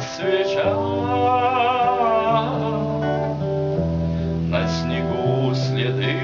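A song with guitar accompaniment over a steady, changing bass line. In the first half a voice holds one long wavering note.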